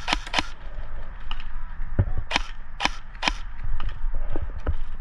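Airsoft guns firing: sharp, short snaps, a quick burst of three at the start and three more about half a second apart a little past the middle, over a low steady rumble from the indoor field.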